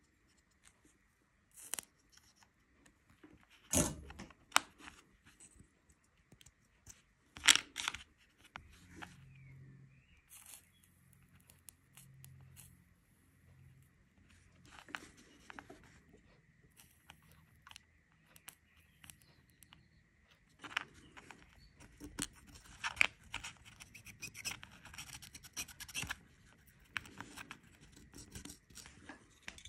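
Small clicks, taps and scrapes of a soldering iron tip and fingers handling a tiny circuit board on a workbench, with two louder knocks about four and seven seconds in and a faint steady high tone underneath.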